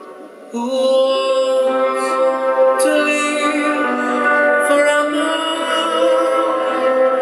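Live concert music from a rock-meets-classical show. After a brief quiet dip, the full arrangement comes back in about half a second in and carries on with long held notes.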